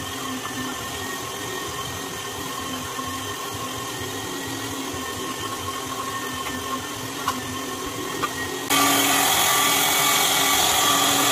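Electric meat grinder's motor running steadily with a whine while grinding hog meat; about nine seconds in it turns suddenly louder.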